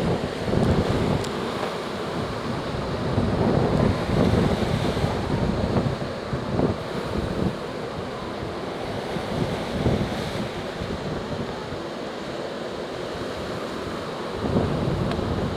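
Surf breaking and washing up a beach as a hurricane swell builds, with wind gusting across the microphone in low rumbling surges every second or two.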